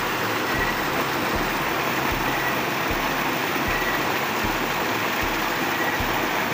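Water rushing and churning steadily as a small stream cascade pours into a rocky pool.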